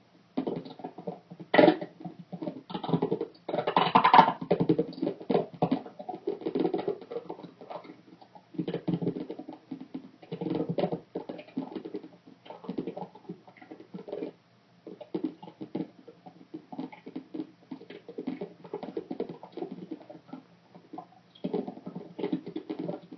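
Rapid, irregular scratching and clicking in dense runs of a few seconds with short pauses between, the sharpest clicks near the start; its source is unidentified.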